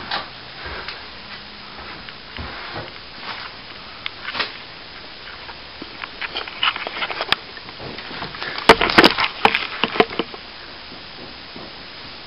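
Plastering tools scraping and tapping as cornice cement is pushed into and filled across a ceiling patch, with a quick cluster of sharp knocks and clicks about nine seconds in.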